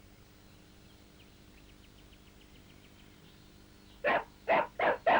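Faint background, then about four seconds in four short, sharp animal calls in quick succession.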